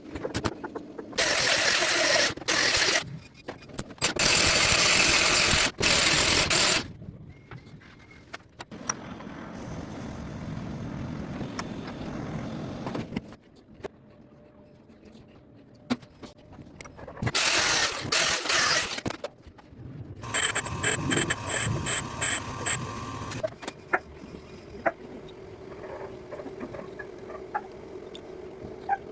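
Metalworking machinery noise: several loud bursts of cutting or grinding noise, a passage with an even, rapid mechanical rhythm, and quieter steady machine running between them.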